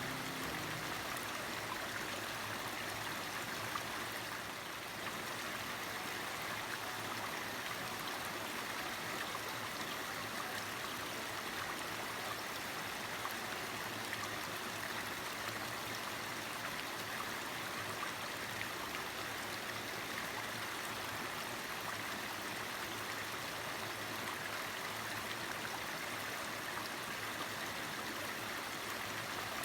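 Mountain stream flowing over rocks, a steady even rush of water.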